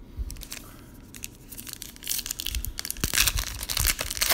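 Foil wrapper of a 2017 Panini Diamond Kings baseball card pack being torn open and crinkled in the hands. The crackling starts about halfway through and is loudest near the end.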